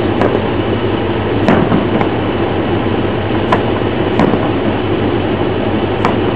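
Aerial fireworks shells bursting: about five sharp bangs at irregular intervals, over a steady loud rushing noise.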